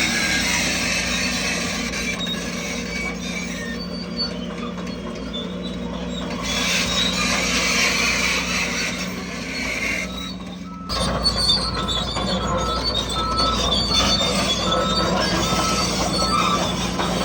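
Crawler bulldozer's diesel engine running steadily, with the steel tracks squealing and clanking as it moves. The sound changes abruptly about eleven seconds in.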